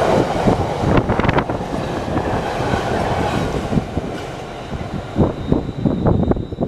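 Train passing through a station: a steady rumble with wheels clattering over rail joints, fading away over the first four seconds or so. Scattered knocks follow near the end.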